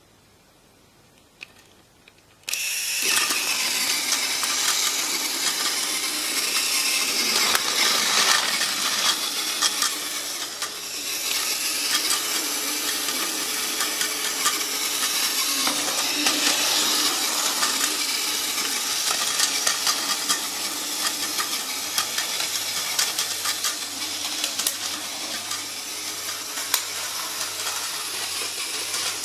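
A battery-powered Tomy Plarail toy train's small electric motor and gears whirring as it runs along plastic track, with many small rattling clicks. It starts suddenly a couple of seconds in and then runs steadily.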